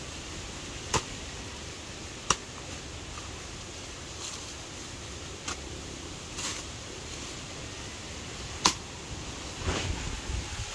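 Machete chopping into a felled banana plant's soft trunk: three sharp strikes, about a second in, a second later and near the end, with lighter hacks between and rustling of leaves and trash at the close.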